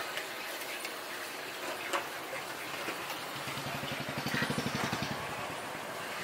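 Street-side background noise with a single sharp clink about two seconds in. From about three seconds in, a small engine runs with a low, even putter for about two seconds and then fades.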